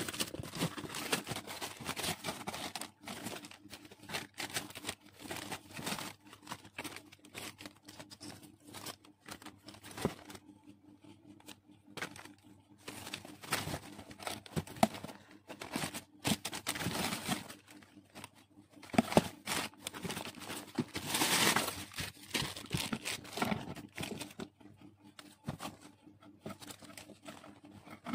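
Tissue wrapping paper rustling and crinkling in irregular bursts as a pair of new sneakers is unwrapped from it and handled.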